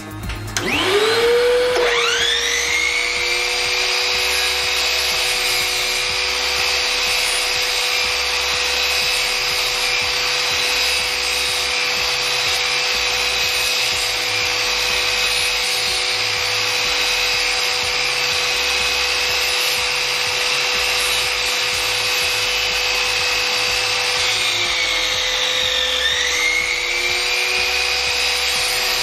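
SIP 12-inch sliding compound mitre saw, 2000-watt belt-driven motor, starting up with a rising whine and then running at a steady high whine. About 24 seconds in, the pitch sags as the blade takes load in the timber, then climbs back a couple of seconds later.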